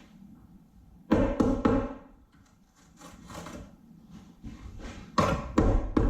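Hammer blows on rusted car-frame sheet steel, each with a short metallic ring: a few quick strikes about a second in, then a faster run of strikes near the end.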